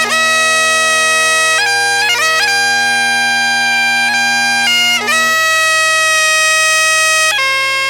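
Great Highland bagpipe playing a tune over its steady drones. Held chanter notes change every second or two, each change marked by quick grace-note flicks.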